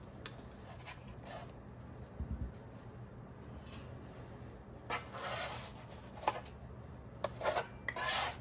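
Metal spatula scraping and sliding under cut butter cookies on parchment paper over a metal baking sheet, several short scrapes in the last few seconds. A soft low thump about two seconds in.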